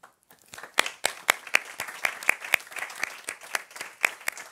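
Audience applause: many people clapping, starting about half a second in and keeping on.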